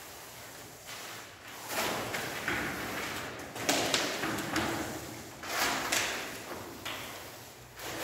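Paint rollers on extension poles being rolled over a wall: a noisy swish with each stroke, several strokes a couple of seconds apart.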